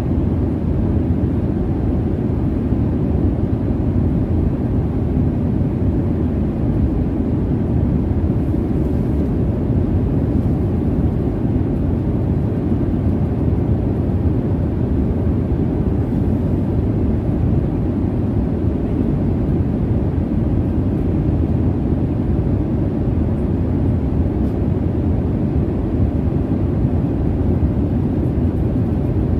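Jet airliner cabin noise in flight: a steady, even low rumble of engines and airflow, with nothing standing out.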